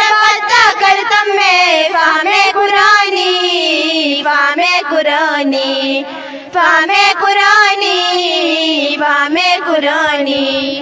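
A group of schoolgirls singing a nazm together in long, drawn-out melodic lines with wavering held notes, breaking off briefly for breath about six seconds in.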